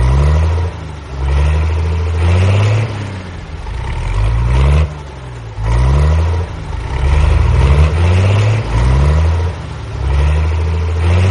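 Tractor engine sound revving up and down in repeated surges about every second or two.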